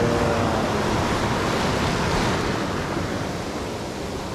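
Ocean surf breaking and rushing around the bow of a small boat as it pushes out through the waves, with wind buffeting the microphone. The rush eases slightly near the end.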